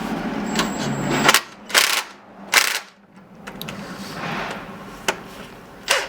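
Hand-tool work on an engine during teardown: a dense mechanical rattle for about a second, then several separate sharp metal clanks.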